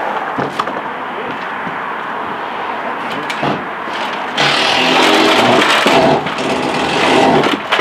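Steady outdoor background noise, with a motor vehicle's engine rising louder from about four and a half seconds in and holding a steady hum.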